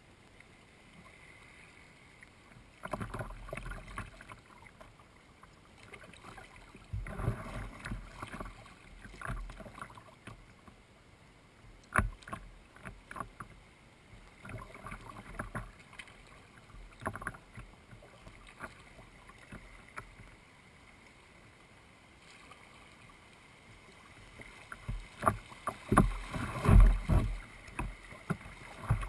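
Kayak paddling: irregular splashes and drips of paddle blades in the river water, coming in clusters. A single sharp knock sounds about twelve seconds in, and the splashing is loudest and densest near the end.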